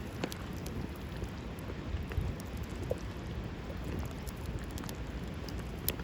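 Wood campfire burning with a steady hiss and scattered small crackles and pops.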